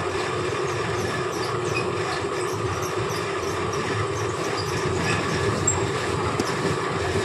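Fabric checking machine running steadily as cloth is drawn through it past a wheeled metre counter: a continuous mechanical running noise with a constant hum.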